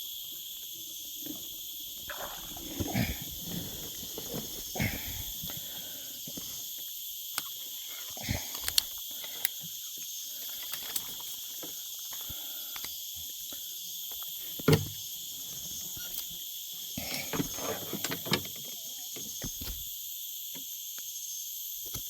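Steady high-pitched chorus of insects in several bands, with scattered knocks and rustles of handling; the loudest is a single thump about fifteen seconds in.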